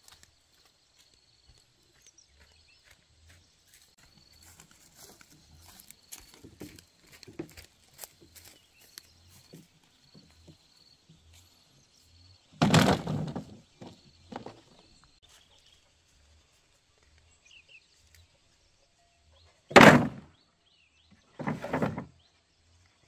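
Dry bamboo poles being handled and dropped onto a pile: light knocks and rustling, then three loud knocks, one a little past halfway and two about a second and a half apart near the end.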